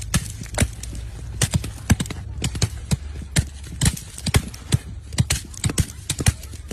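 Irregular sharp clicks and taps, a few a second, over a low steady hum.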